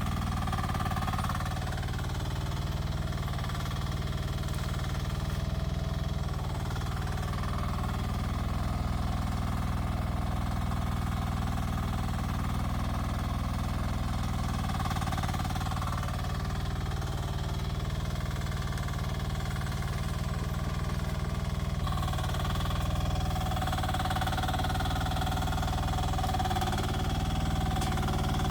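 Rippa R10 mini excavator engine running steadily under work.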